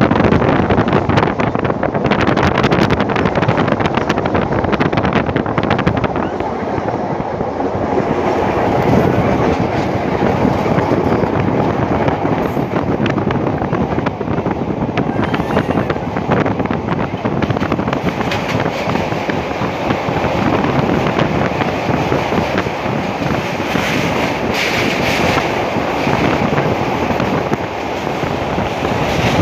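A train crossing a steel truss bridge, heard from aboard: a steady rumble and rattle of the wheels on the rails, dense with fine clicks.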